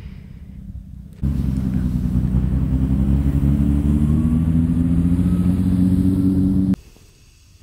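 A motor vehicle's engine running and slowly rising in pitch as it speeds up. It starts suddenly about a second in and cuts off near the end.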